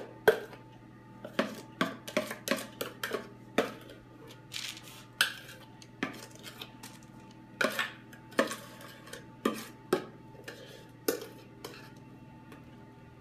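A metal utensil scraping and clinking against the inside of a stainless steel pot as thick sponge-cake batter is scraped out, in short irregular knocks about once or twice a second that stop shortly before the end.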